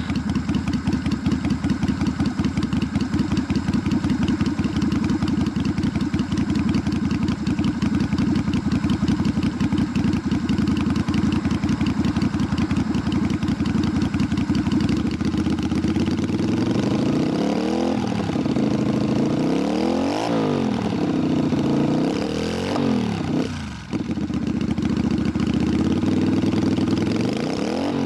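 Yamaha Virago 250's V-twin engine running through a slash-cut drag-pipe exhaust. It idles with an even, pulsing beat for about the first sixteen seconds, then is revved in four short throttle blips, each rising and falling in pitch.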